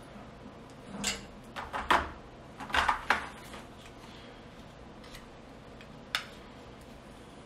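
Handling noises of small metal hand tools and parts on a stainless steel gas range cooktop: a few sharp clicks and knocks in the first half, one more about six seconds in, and quiet between.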